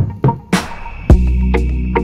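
Background music with a drum beat and bass: the beat drops out briefly, a cymbal-like swell comes in about half a second in, and the beat returns about a second in.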